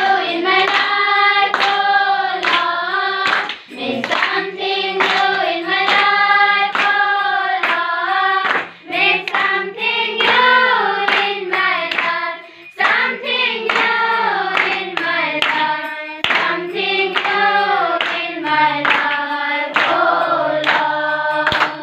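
A group of children singing a Nepali devotional bhajan together in unison, clapping their hands in a steady rhythm in time with the song.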